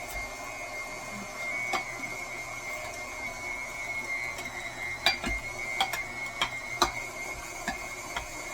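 KitchenAid stand mixer running with its metal food grinder attachment fitted: a steady motor whine and gear hum, with several sharp clicks and knocks, mostly from about five seconds in.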